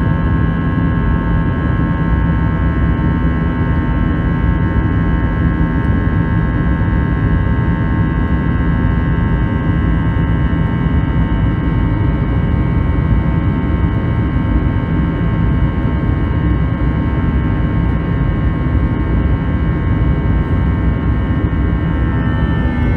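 Airliner cabin noise in an Airbus A320 in flight: the steady rush of the jet engines and airflow, with several steady whining engine tones above it. Near the end the tones shift in pitch.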